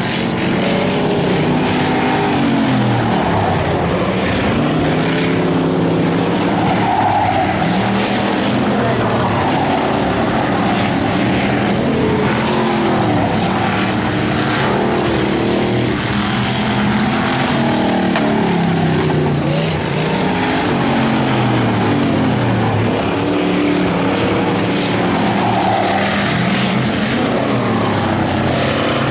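Several Bomber-class race cars racing around the speedway, their engines rising and falling in pitch again and again as they rev through the laps and pass by, with several cars heard at once.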